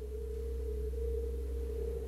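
A steady, eerie sustained tone over a deep low drone, held throughout: film-score sound design.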